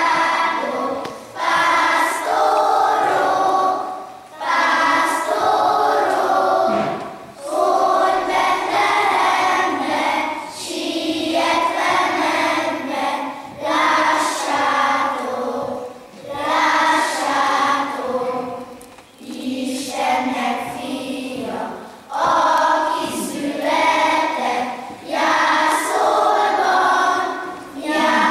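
A group of children singing together, in phrases of about two to three seconds with a short breath between each.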